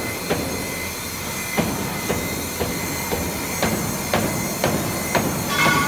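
Workshop machinery running: sharp irregular knocks, roughly two a second, over a steady high hum, with a squealing whine coming in near the end.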